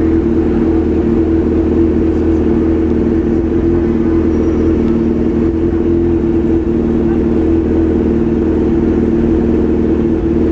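Honda CB1000 motorcycle's inline-four engine running at steady revs through a straight-through aftermarket exhaust: a loud, even drone.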